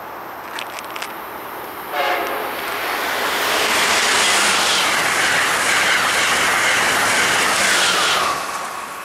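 Amtrak electric train sounding a short horn blast about two seconds in, then passing at speed close by: a loud, steady rush of wheels on rail and air that cuts off suddenly near the end.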